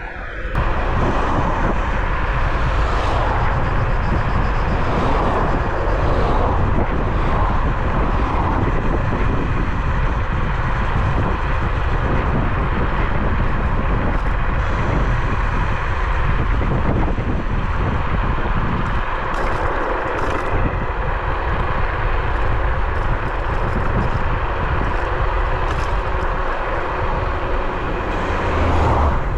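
Steady rushing noise of riding a Bluetran Lightning 72V electric scooter at speed: wind over the microphone and tyres on the road, unbroken throughout.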